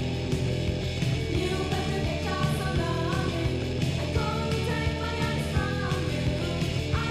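Noise-pop rock song: a full band with electric guitar and drums, and a voice singing over it.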